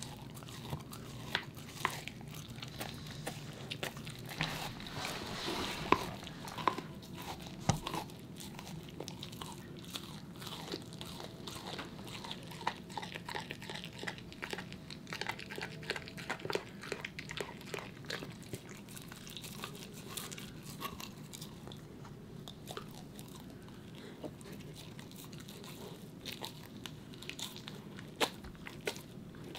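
A corgi gnawing on a raw meaty bone: irregular crunches, clicks and scrapes of teeth on bone, with a run of louder crunches about five to eight seconds in.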